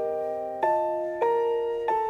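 Soft background piano music: chords struck about every 0.6 seconds, each fading slowly until the next.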